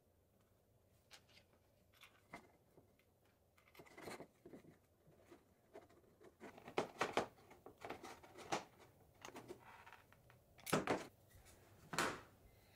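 Brass bulkhead fittings and nuts being handled and fitted to a frosted acrylic plate: faint, irregular clicks, taps and rustles. They grow busier after about six seconds, with a couple of louder knocks near the end.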